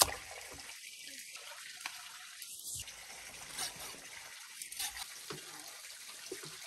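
Water trickling and splashing steadily, with a sharp click at the very start.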